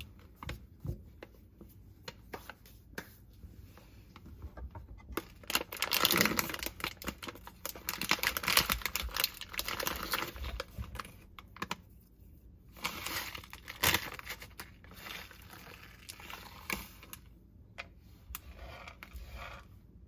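Clear plastic bakery wrapper crinkling and rustling in irregular bursts as hands pull a crumble bar out of it. A few light clicks and knocks are heard among the rustling.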